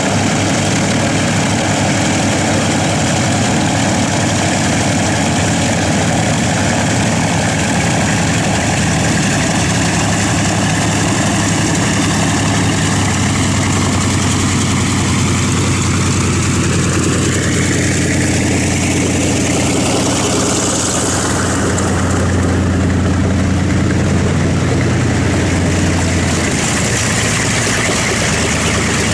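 Grumman C-1A Trader's two Wright R-1820 nine-cylinder radial engines running at taxi power as the aircraft taxis past, the propellers' drone steady and loud, with a sweeping shift in tone midway as it goes by.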